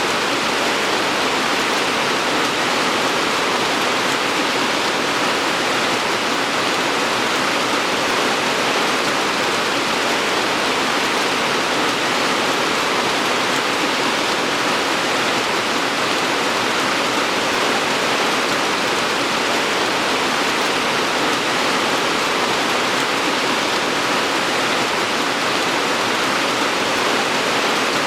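Steady, heavy rain falling, an even hiss of drops with no single drop or other sound standing out.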